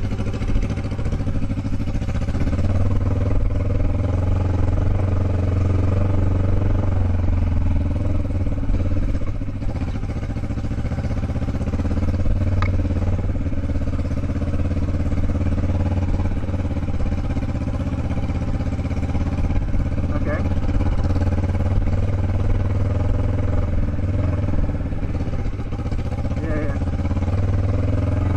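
Motorcycle engine running steadily at low speed along a dirt trail, with a few faint clicks along the way.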